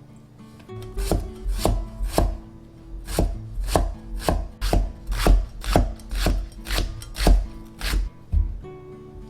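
Kitchen knife chopping food on a cutting board: about a dozen steady strokes, roughly two a second, starting about a second in and stopping near the end.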